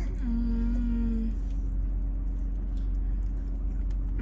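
Steady low background hum, with a short flat hummed tone lasting about a second near the start, like a closed-mouth 'mm'.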